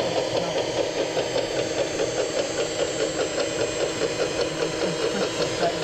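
Small electric motors and gearing of RC construction machinery running steadily, with an even, rapid rattle.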